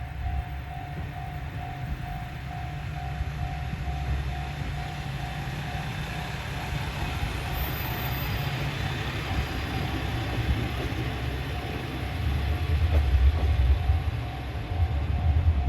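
Japanese level-crossing warning bell ringing steadily, about two and a half dings a second, over the low rumble of a train that grows louder in the last few seconds.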